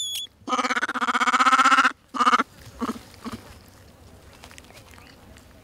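Vervet monkey calling: a short high chirp, then one long wavering cry lasting about a second and a half, a shorter cry right after it, and a couple of faint ones.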